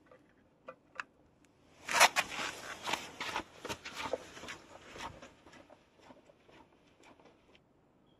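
Footsteps with scuffs and clicks, loudest about two seconds in and fading away over the next few seconds as the walker moves off.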